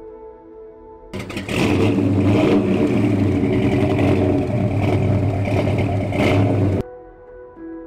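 Classic Dodge R/T muscle car's V8 running loud through its dual exhaust, swelling briefly a few times. It cuts in about a second in and stops abruptly near the end, with soft ambient music either side.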